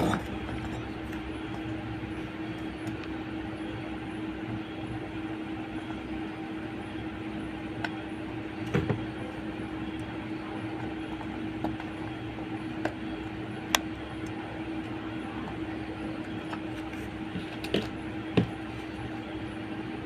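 Steady electric motor hum with one constant tone throughout, and a few light clicks and taps of small tools at the bench.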